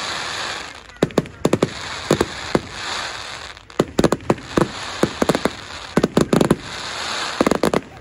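Fireworks display: aerial shells bursting in quick clusters of sharp bangs, with hissing crackle between the bursts.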